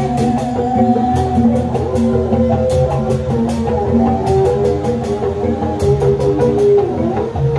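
Sundanese kuda renggong band music: an instrumental passage of melody notes over a bass line and drums, with sharp percussion strokes several times a second.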